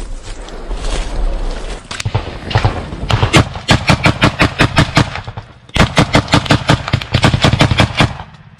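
Rifle fired at close range, a few single shots about two seconds in, then rapid automatic bursts of about six to seven shots a second with a brief pause just after five seconds.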